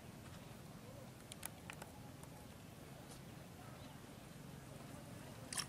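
Quiet outdoor background with a few faint clicks, then a burst of sharp splashing and clicking near the end as hands work a fishing net in shallow water.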